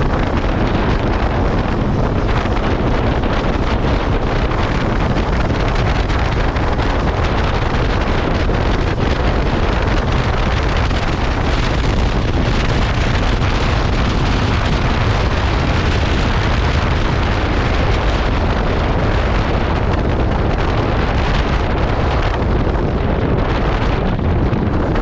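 Steady, loud wind rushing over the microphone while riding a KTM 390 Adventure, a single-cylinder motorcycle, with its engine running beneath the wind.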